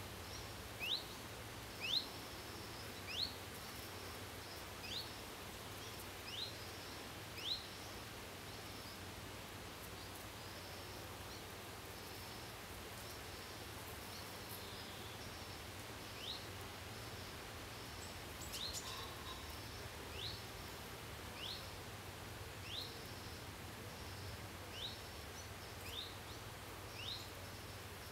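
A bird calling over and over, a short, quickly rising note about once a second, in two runs with a pause of several seconds between them, over a steady background noise with a low hum.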